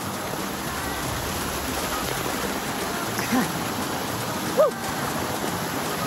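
Waterfall cascading over rocks into a pool close by, a steady rush of water, with two brief voice sounds partway through, the second louder.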